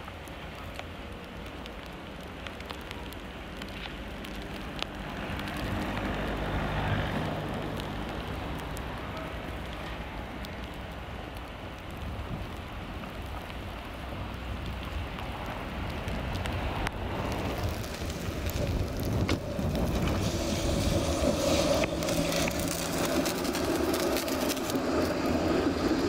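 Snowy city street with a low traffic rumble. From about two-thirds of the way through, a tram comes close and passes, and its wheel and motor noise grows louder, with a hiss on top.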